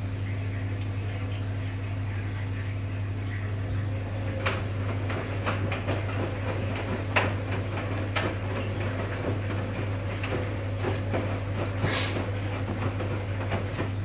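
Arcelik front-loading washing machine tumbling its load in water during the rinse: a steady low motor hum under sloshing water and laundry splashing in the drum, with scattered small clicks and knocks.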